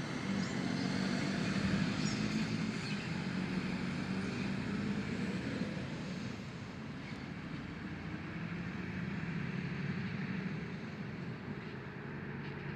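Vehicle engine running with road noise. The engine note glides up and back down around the middle, and the sound is a little quieter in the second half.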